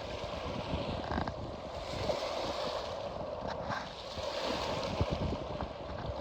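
Wind buffeting the microphone over the steady rush of river water, with a few faint knocks.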